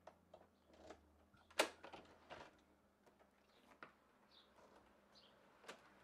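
A quiet room with a few scattered soft knocks and clicks, the loudest about a second and a half in. Faint short bird chirps come in the second half.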